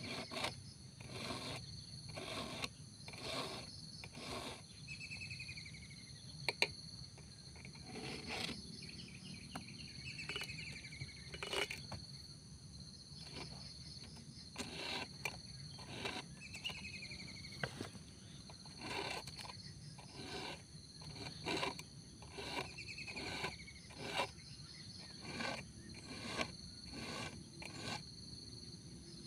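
Round file rasping across the cutters of a Robin Plus chainsaw chain in even hand strokes, about one a second, sharpening the chain. Insects chirp steadily underneath, with a few short falling chirps now and then.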